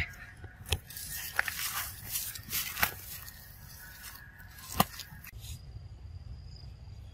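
Dry leaf litter rustling and crackling as monkeys move over the forest floor, with several sharp snaps, the loudest about five seconds in. After about five seconds the rustling stops, leaving a faint steady high tone.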